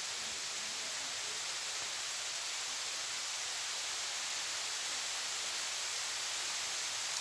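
Steady rain falling, an even hiss with no change in level.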